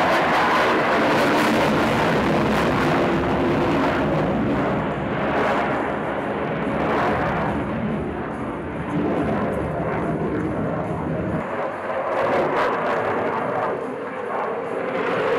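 Fighter jet in a flying display, its engines at high power: a loud, continuous rush of jet noise that swells and eases as the aircraft passes and turns, its deep rumble dropping away about eleven seconds in.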